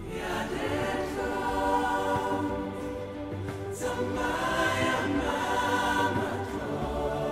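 African-style chorus: a choir singing held chords in two long phrases, with a short break about halfway through.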